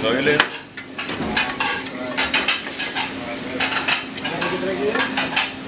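Busy restaurant kitchen at work: repeated clinks and clatter of plates, pans and utensils over a steady hum and a hiss like frying.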